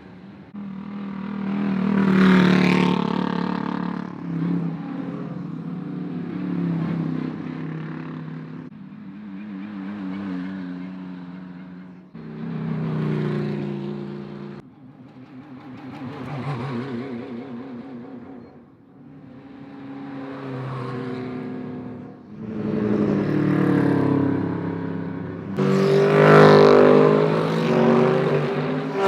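Racing car engines heard trackside in a string of short edited clips, each a car accelerating or passing with its engine note rising and falling through gear changes. The loudest passes come about two seconds in and near the end.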